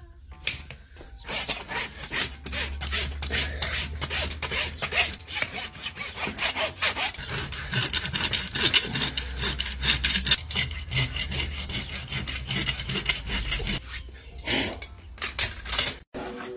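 Farrier's hoof rasp filing a horse's hoof, a long run of quick, even back-and-forth strokes that stops about fourteen seconds in, followed by a few last strokes.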